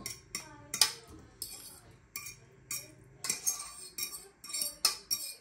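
A metal utensil clinking and scraping against cookware as pasta in tomato sauce is stirred and served, in a dozen or so irregular sharp clinks, roughly two a second.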